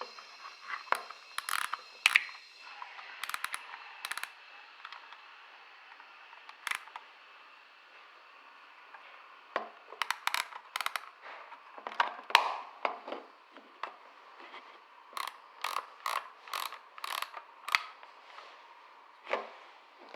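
Snapshot 35mm film camera being loaded with film: scattered sharp clicks and bursts of rapid ratchet clicking as the film is fitted and wound on.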